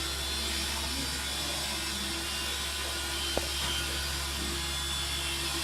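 A steady low hum with hiss, and a single sharp click about three and a half seconds in.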